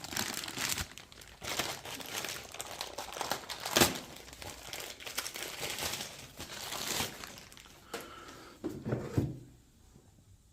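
Packaging crinkling and rustling as a new lawn tractor starter motor is unwrapped, with a couple of sharper knocks, one about four seconds in and one near the end, before it stops.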